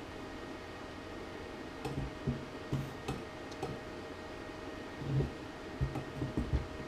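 Steady hiss with a faint hum, and from about two seconds in a run of irregular dull knocks and a few light clicks, as of objects being handled on a bench.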